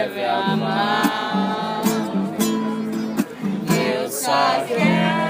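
Street musician singing a Portuguese-language song with strummed and plucked acoustic guitar.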